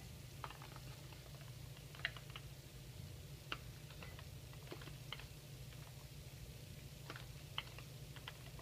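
Faint, scattered light clicks and taps of a plastic measuring spoon against a glass spice jar while scooping out ground cinnamon, over a low steady hum.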